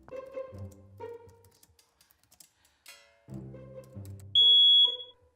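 Background music, cut through about four seconds in by a single loud, high-pitched smoke alarm beep lasting about half a second.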